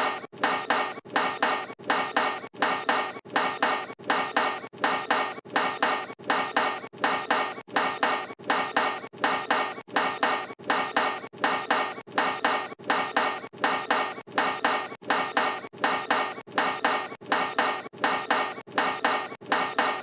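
A basketball clanging off a metal hoop rim, a missed 'brick' shot, repeated in an even loop about twice a second, each hit ringing briefly.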